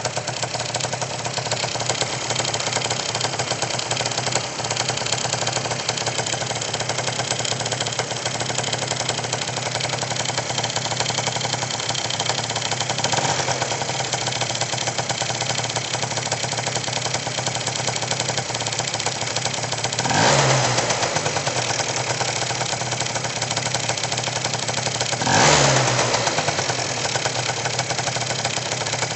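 Car engine idling with a strange knock, revved briefly twice, about two-thirds of the way in and again five seconds later.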